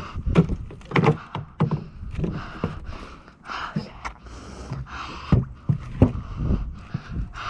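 Irregular knocks and rattles of a mountain bike and the wooden boards of a homemade ramp and plank under its tyres and feet, with heavy breathing close to the microphone between them.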